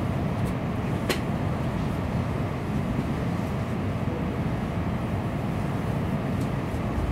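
Steady running noise inside a Tokaido Shinkansen car: a low rumble with hiss as the train rolls along the track. A single sharp click sounds about a second in.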